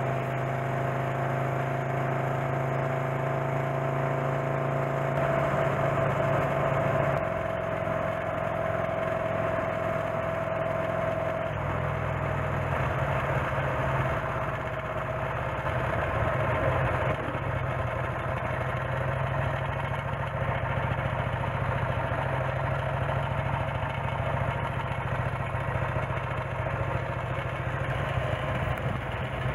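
Engine of a 1928 Norton motorcycle fitted with a J.A.P. engine, running on the road, with road and wind noise. Its pitch drops in steps about a quarter and about two-fifths of the way in, then the engine runs slower and rougher as the bike slows.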